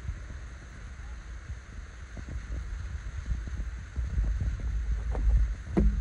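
Wind rumbling on a phone microphone, growing louder about two-thirds of the way through, with light footsteps and a sharp tap just before the end.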